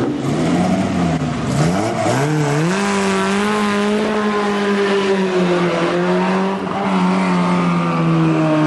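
Vintage open-wheel racing car engine revved in quick blips at the start line, then accelerating away; its pitch steadies and slowly falls as the car draws off.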